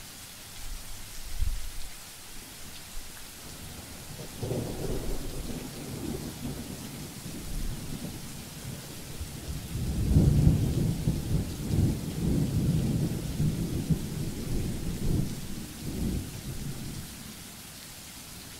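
Thunder rumbling over a steady hiss of rain. A brief rumble comes about a second and a half in, a longer roll starts around four seconds, and the loudest, longest roll runs from about ten to sixteen seconds before dying away.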